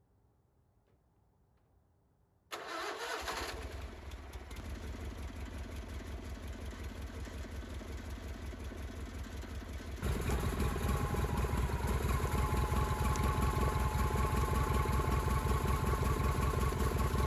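An engine starts up about two and a half seconds in and runs with an even pulse; about ten seconds in it gets louder and a steady whine joins it.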